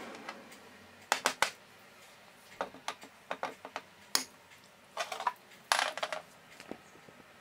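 Glass jars clinking and knocking as they are handled and set down on a glass-ceramic cooktop: three quick clicks about a second in, then scattered taps and clinks, with a short rattling cluster near the end.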